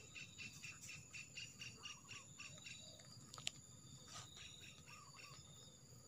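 Faint insect chirping, about four chirps a second, over a steady high-pitched whine, with a single sharp click about three and a half seconds in.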